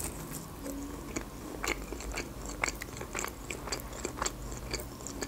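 A person biting into and chewing a crispy McDonald's chicken nugget: a bite at the start, then a string of short, irregular crunches as it is chewed.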